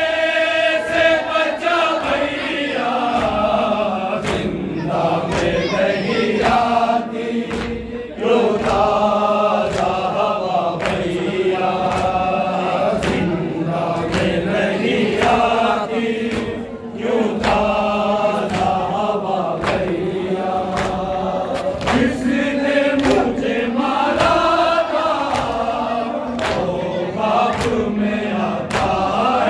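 A noha, a Shia Muslim lament in Urdu, chanted by a male reciter through a microphone with a group of men singing along. Sharp regular strokes, a little more than one a second, keep time under it: the men's chest-beating (matam).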